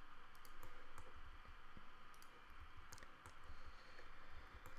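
Faint, scattered clicks of a computer mouse, about a dozen spread irregularly, over a faint steady hiss.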